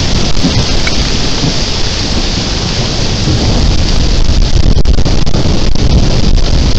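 Heavy thunderstorm rain pouring steadily and loudly, with a low rumble of thunder underneath.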